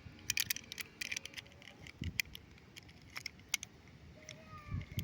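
Light, irregular clicks and crackles of small plastic toy pieces and packaging being handled, busiest in the first second and a half.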